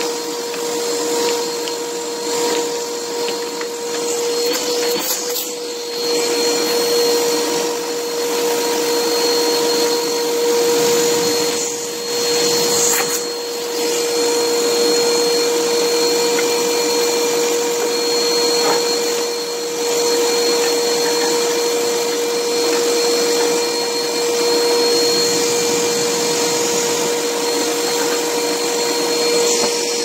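Vacuum cleaner running with a steady whine as its hose sucks dust out of a refrigerator's clogged condenser coils. The sound dips briefly a few times.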